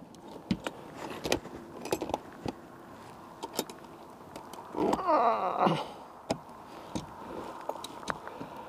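Scattered metallic clicks and rattles of a steel body-grip trap being handled, with a short falling groan-like voice about five seconds in.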